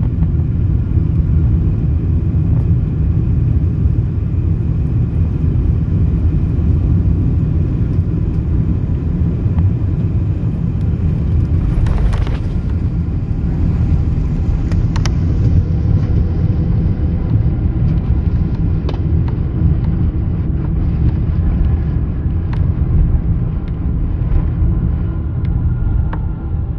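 Cabin noise of a Boeing 777-300 airliner landing: a steady, loud low rumble of engines and rushing air. There is a short bump about twelve seconds in, and the higher hiss slowly fades over the second half.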